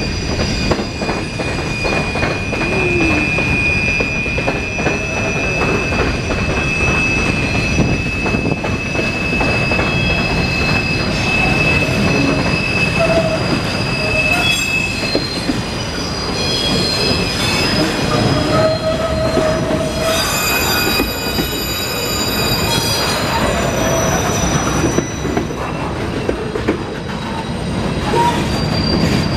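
CSX mixed freight train's cars rolling past close by, their steel wheels squealing steadily against the rails as the train takes a curve, over the heavy rumble of the trucks. A high squeal holds through the first half, and higher-pitched squeals join in about two-thirds of the way through.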